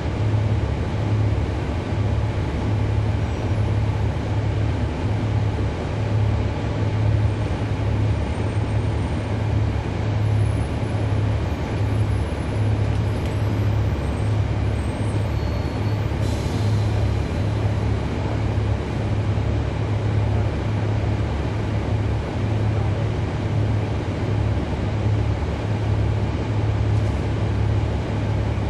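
Cummins ISL9 diesel engine of a 2011 NABI 40-SFW transit bus running steadily under way, a deep even drone heard from aboard the bus. A brief faint hiss about halfway through.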